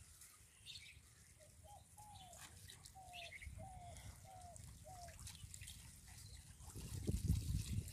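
Water trickling and splashing off a bamboo lift net as it is hauled up out of a flooded field, getting louder near the end as the net clears the surface. A bird calls a run of about six short notes in the middle.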